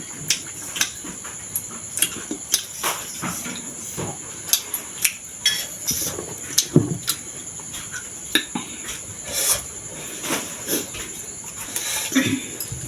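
Close-miked eating sounds: chewing and lip smacks at irregular intervals, with cutlery clicking against a dish. Under them runs a steady high chirring of crickets.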